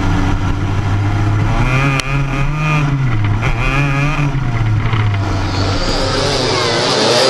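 Racing kart engine heard onboard at speed, its note climbing and dropping several times as the driver throttles and lifts through the corners. Near the end it fades into a denser, hissier engine noise.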